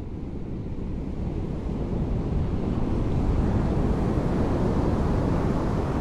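Small ocean waves breaking and washing up a sandy beach. The surf grows over the first two seconds or so as a wave breaks, then holds steady.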